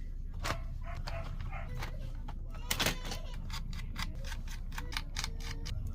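Quick clicks and taps of laptop parts being handled and worked on, with a louder clatter about three seconds in and a quick run of clicks after it, over a steady low hum.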